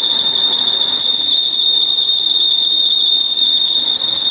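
Fire alarm sirens of a building's fire alarm system sounding one continuous, steady high-pitched tone with no breaks: the alarm has been triggered for a test.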